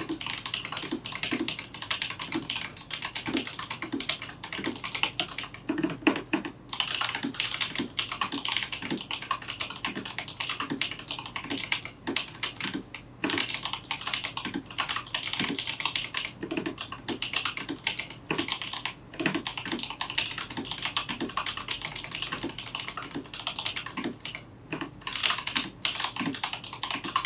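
Typing test on a modded Vortex Series VX5 mechanical keyboard with Gazzew Boba U4 silent tactile switches lubed with Krytox 205g0, lubed and tuned Durock plate-mount stabilizers and an acrylic case. Fast, steady keystrokes with short pauses now and then.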